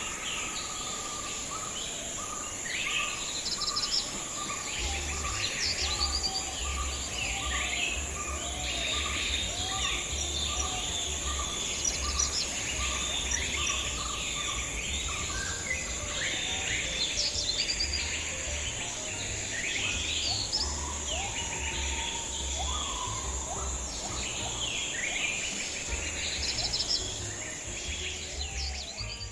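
Many birds chirping and calling over one another above a steady high-pitched insect drone. One short note repeats at an even pace, a little under twice a second, through the first half. A low rumble comes in about five seconds in.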